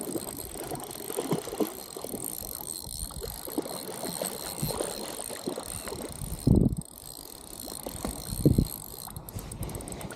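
Spinning reel being cranked while fishing for trout, with rustling handling noise and two loud thumps, about 6.5 and 8.5 seconds in.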